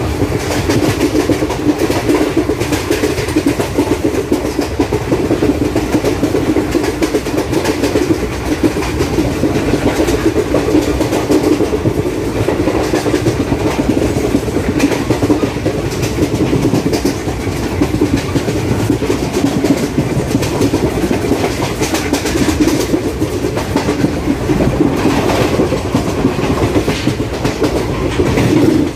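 ICF passenger coaches of an Indian Railways express running at speed, their wheels clicking over the rail joints under a continuous rumble from the track.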